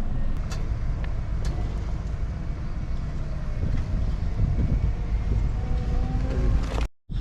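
Excavator's diesel engine running steadily under working load, with a few sharp knocks and faint shifting tones over the rumble. The sound cuts off abruptly just before the end.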